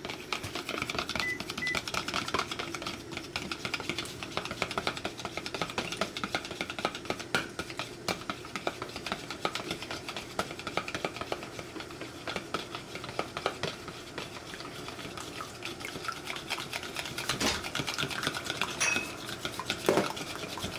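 Chopsticks beating raw eggs in a bowl: rapid, continuous clicking of the sticks against the bowl, with a couple of louder knocks near the end.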